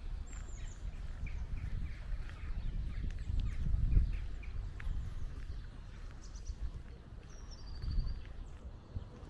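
Footsteps walking along a dirt path, with small birds chirping in short, high calls several times. Under them runs a low rumble that swells about four seconds in and again near the end.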